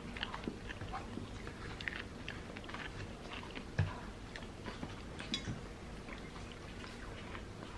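A person chewing and eating, close up: small wet clicks and smacks of the mouth, with a low thump a little under four seconds in.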